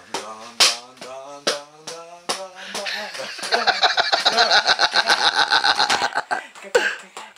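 Empty plastic bottles used as drumsticks beating the back of a leather office chair as a practice taiko: single strikes about two a second, then a fast roll from about three to six seconds in, with a man's voice calling out over the beats.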